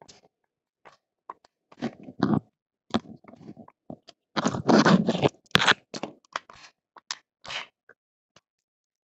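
Rifle cartridges being pressed one at a time into an AR-15 magazine by hand: irregular clicks and scrapes of brass against the magazine, loudest about halfway through.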